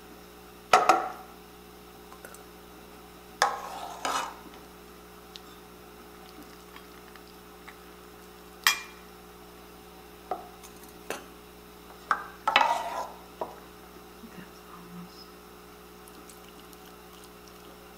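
Metal ladle and stainless steel canning funnel clinking and scraping against glass canning jars and the pot as hot beef broth is ladled into the jars, in scattered sharp knocks with two longer clatters, over a faint steady hum.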